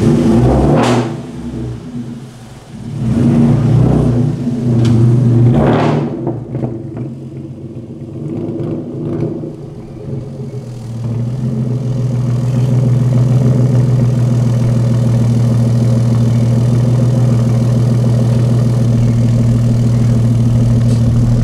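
Hyundai Genesis Coupe 3.8's naturally aspirated V6, fitted with ported intake manifolds and throttle body, running as the car is driven out of a garage, with the revs rising and falling over the first few seconds. From about ten seconds in it settles into a steady idle while still warming up.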